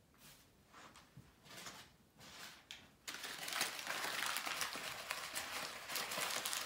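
Crumpled paper crinkling and rustling continuously as it is worked in the hand and tugged at by a puppy. The crinkling starts abruptly about three seconds in, after a few soft rustles.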